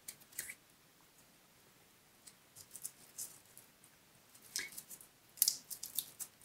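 Faint, crisp clicking and rustling of a dry twig with small cones on it as it is handled between the fingers. The clicks come in scattered clusters and are busiest near the end.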